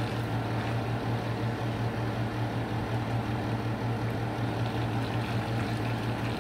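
Steady low hum with an even rush of noise from a running household appliance motor, unchanging throughout.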